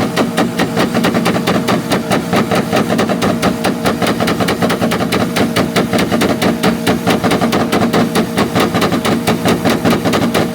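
Two import car engines held on their two-step launch limiters, cutting out in a fast, steady string of pops and crackles at about seven a second over a held engine note.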